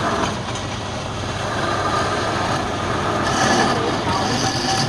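Wood lathe running with a turning tool cutting the spinning wood: a steady scraping noise over the machine's hum.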